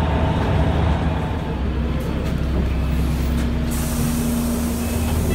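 City bus engine running, heard from inside the cabin. About three and a half seconds in, a loud, steady air hiss from the bus's pneumatics starts as it comes to a stop.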